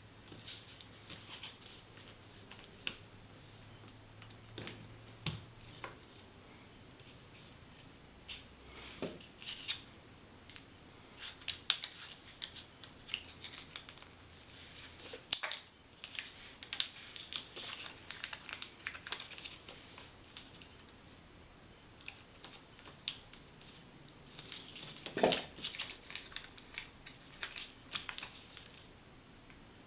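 Small plastic parts of a Kinder Surprise toy being handled and fitted together by hand: irregular light clicks, snaps and rustles, with bursts of busier handling in the middle and near the end.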